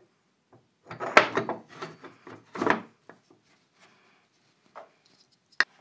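Wooden parts of a handsaw guide jig being handled and fitted together: a few irregular knocks and scrapes of wood on wood, loudest about a second in, with a sharp click near the end.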